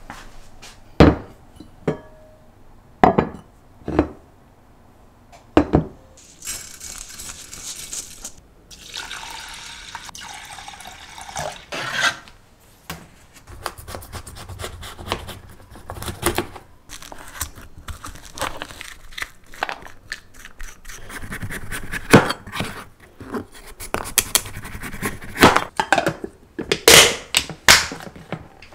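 Kitchen handling sounds: a series of sharp knocks, and a kitchen knife cutting through a kabocha squash on a plastic cutting board. Near the end, glass storage containers with plastic lids clink and rub on the countertop, with stretches of hiss and rubbing in between.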